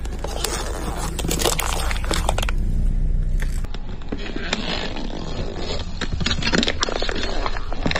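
A car tire rolling slowly over toys and crushing plastic dome cups packed with foam-bead slime, with crackling, crunching and scraping as the plastic gives way and the beads are squashed. The car's engine rumbles low underneath.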